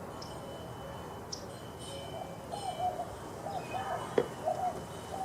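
A dove cooing in a run of short, even-pitched notes, with small birds chirping faintly and a single sharp click about four seconds in.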